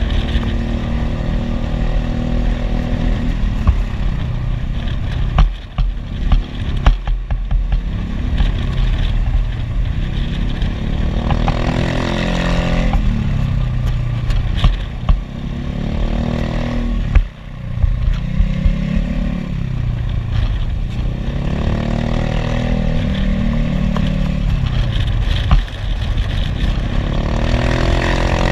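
Motorcycle engine heard from onboard while riding, its note rising and falling over and over as the throttle is opened and closed, with a few sudden drops when the throttle is shut, over rushing wind noise.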